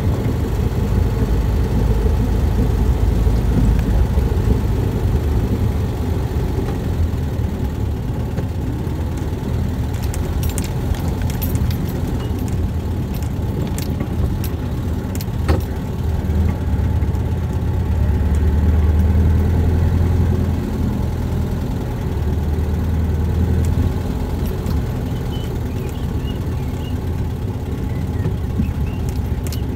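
Off-road buggy engine running steadily while driving, with the engine note swelling for a couple of seconds past the middle. A few sharp clicks and knocks come in between.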